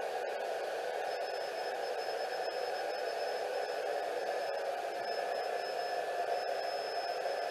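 P-SB11 spirit box sweeping radio frequencies, giving a steady hiss of radio static broken by a few very brief dropouts. A thin high whine comes in about a second in.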